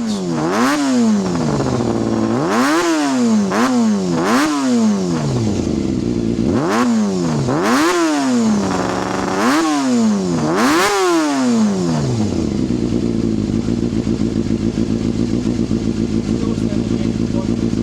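Honda CBR250RR MC22 inline-four engine blipped about eight times, its pitch shooting up and dropping back each time, then settling to a steady idle for the last few seconds. It is running cleanly on freshly cleaned carburettors.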